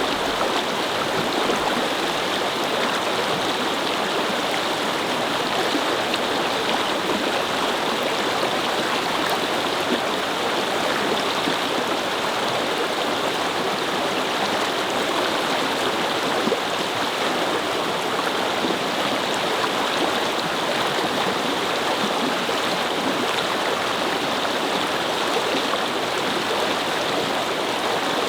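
A brook babbling over stones: steady, even flowing water.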